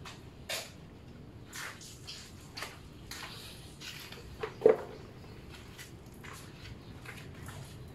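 Plastic water dipper and bucket being handled: scattered splashes and light knocks, with one sharp knock about halfway through.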